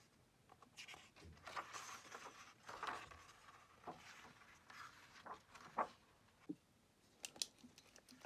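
Soft rustling of paper pages as a new hardcover notebook is opened and its blank pages turned and smoothed down, with a few sharp clicks near the end.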